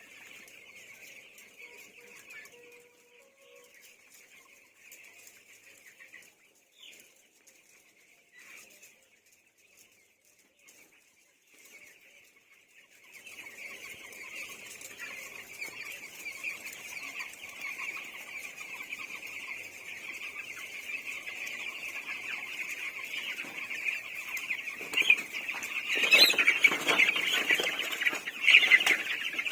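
A flock of chickens in a poultry house, many birds calling at once in a dense, continuous chorus. The chorus grows markedly louder about halfway through, with several louder bursts near the end.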